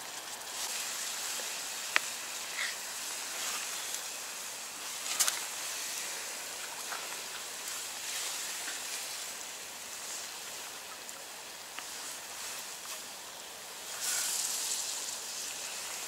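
A frying pan of crêpes in orange syrup sizzling steadily over a campfire. A spatula and fork give a few light clicks and scrapes as the crêpes are lifted onto a plate, with a sharper click about five seconds in.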